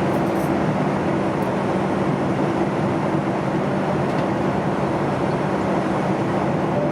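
Steady cabin noise inside a Boeing 737 MAX 8 airliner: an even rush of engine and airflow noise with a low, constant hum underneath.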